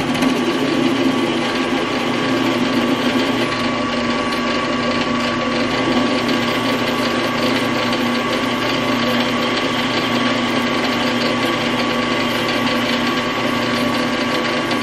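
WEN 4225 floor drill press running at about 400 RPM while a 1/4-inch cobalt drill bit cuts into hot-rolled steel plate: a steady motor hum with a steady whine over it.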